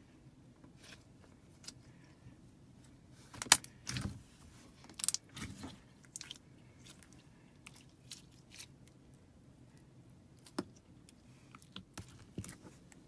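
Slime being squeezed and worked by hand, its trapped air bubbles popping in sharp clicks and crackles. The strongest pop comes about three and a half seconds in, with a cluster of pops just after, then scattered clicks.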